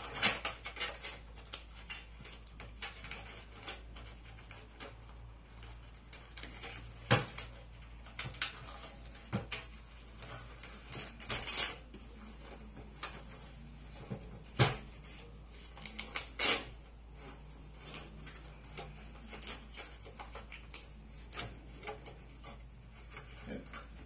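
The folded Nature Compact camp stove being handled: scattered clicks and taps of its metal panels, with a stretch of rustling and three louder sharp knocks spread through.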